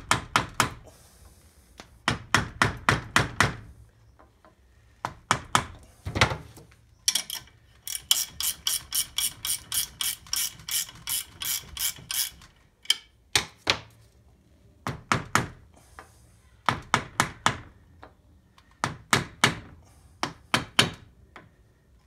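Ratchet clicking in short runs of quick, evenly spaced clicks, with one longer unbroken run in the middle, as the nut on a threaded-rod puller is wound down to press a Super Pro polyurethane bush into a suspension arm.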